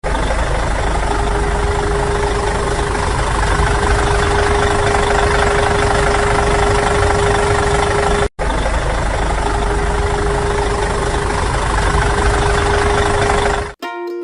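An engine running steadily at idle, with one constant tone over a noisy rumble, cut off briefly about eight seconds in. Plucked-string music starts right at the end.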